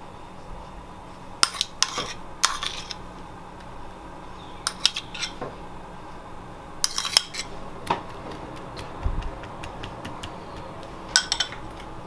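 Metal spoon clinking and tapping against ceramic crockery while sauce is spooned onto chicken seekh kebabs, in four short clusters of clinks.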